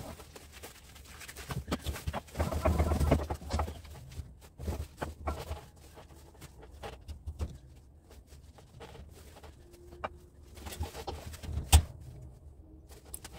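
Insulated wire being worked and pulled through a homemade wire stripper at a bench vise: scattered clicks and knocks of wire and tools, with a louder stretch about two to three seconds in and a sharp knock near the end.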